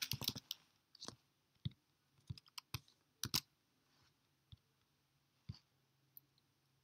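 Computer keyboard keystrokes and mouse clicks, faint: a quick run of keystrokes at the start, then scattered single clicks and short pairs.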